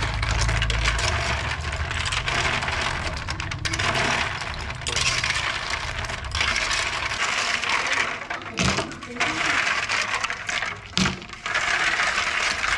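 Freshwater snails being stirred with a spoon and then rubbed by hand in a shallow aluminium basin of water. The shells keep clicking and clinking against each other and the metal, with water sloshing.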